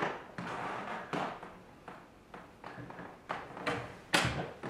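A series of irregular knocks and bumps, about seven in all, the loudest near the end, like objects being handled and set down.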